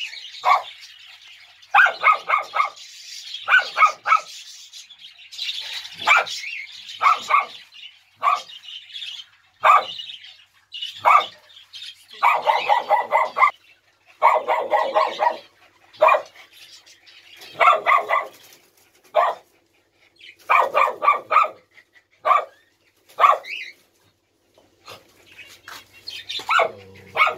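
Small long-haired dogs barking in quick bursts of several barks, a burst every second or two.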